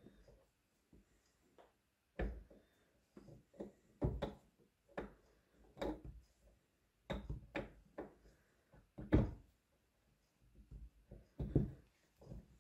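Irregular knocks and clunks, about one or two a second with a short lull near the end, as a gearbox shaft with a new bearing is worked into the milling machine's gearbox housing.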